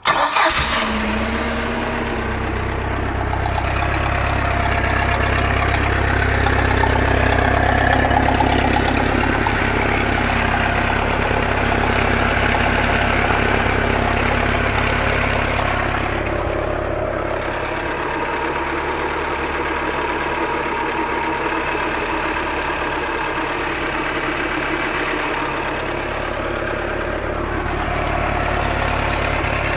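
MerCruiser sterndrive boat engine idling steadily while run on a flushing hose, with cooling and exhaust water splashing out of the outdrive. It is a test run after the exhaust bellows were replaced.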